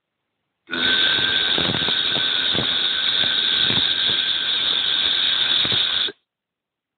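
Bee-like buzzing from the textbook's listening track, the 'zzz' sound: one steady buzz that starts about a second in and stops abruptly about five seconds later.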